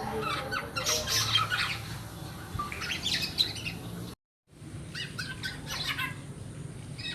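Young black-naped oriole calling in three bursts of short, rapidly repeated harsh chirps, with the audio dropping out to silence for a moment about four seconds in.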